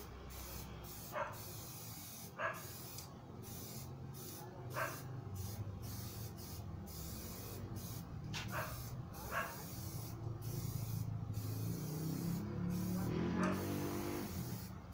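Spray paint hissing in short, repeated on-and-off bursts, with a dog barking a few times in between.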